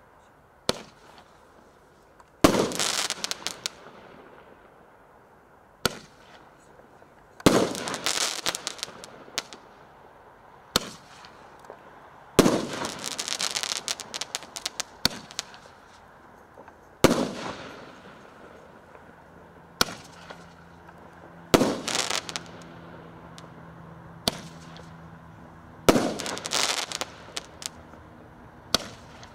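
Maxsem GWL-0012B 30 mm Roman candle firing its shots one at a time, about every five seconds. Each shot is a sharp launch pop, then about a second and a half later a loud burst that crackles for a second or two.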